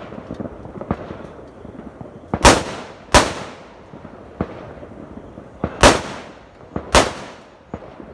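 Fireworks bursting: four loud bangs, two close together in the middle and two more near the end, each with an echoing tail, and fainter pops in between.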